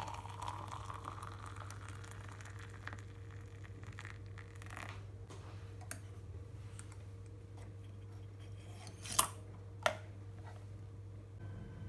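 Hot water poured from an electric kettle into a glass French press of ground coffee, its pitch rising as the press fills, ending about two seconds in. Then light handling ticks, and two sharp clicks about nine and ten seconds in as a small metal container is worked by hand, over a steady low hum.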